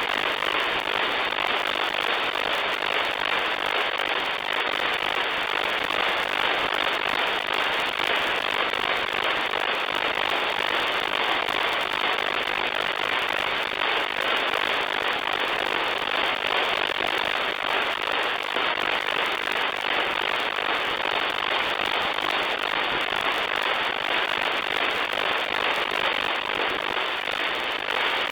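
Steady static hiss from an RTL-SDR V4 software-defined receiver on the 40-metre amateur band, with no station transmitting, cut off above the receiver's narrow voice passband.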